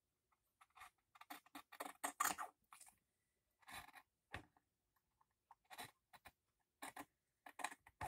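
Scissors snipping through fabric: a series of faint, irregular snips with a short pause around the middle.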